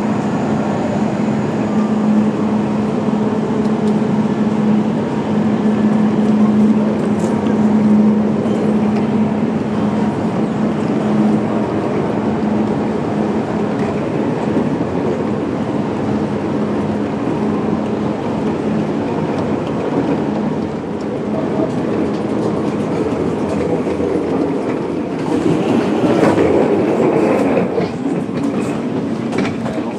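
A Eurostar train beside the platform hums steadily over a general wash of station noise, and the hum fades after about twenty seconds. Near the end comes a louder stretch of rattling and clicking.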